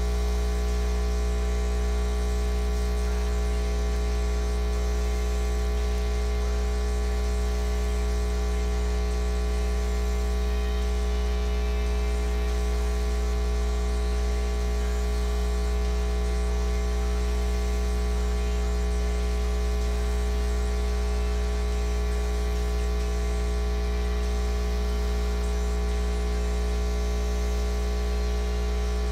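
Steady electrical mains hum, low and strong, with a buzz of many fixed tones stacked above it and a faint static hiss. It does not change.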